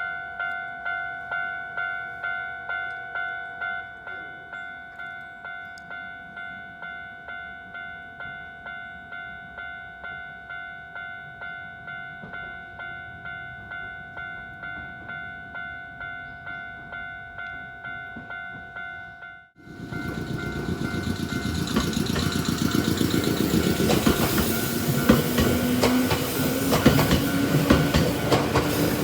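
Level-crossing alarm bell ringing, an electronic clang about twice a second, cut off abruptly about two-thirds of the way through. A Nankai Koya Line electric train then passes over the crossing, its wheels clattering on the rails, with a whine that rises in pitch.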